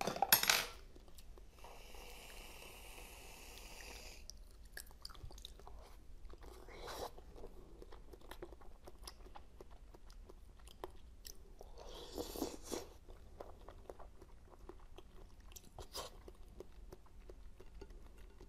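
Close-miked chewing and biting of jelly sweets, with a loud bite right at the start and separate louder bites or slurps about seven, twelve and sixteen seconds in.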